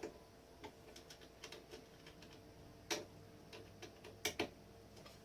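Scattered light clicks and taps from small plastic parts and wiring being handled, with a few sharper clicks near the middle and a close pair about four seconds in, over a faint steady hum.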